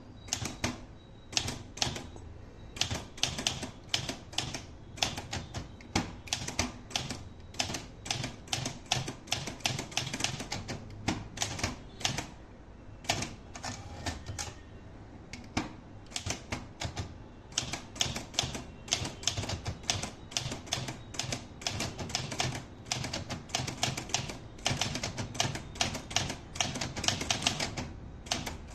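Olivetti Lettera 32 manual portable typewriter being typed on at a steady pace: a quick run of sharp typebar strikes, several a second, with a few short pauses.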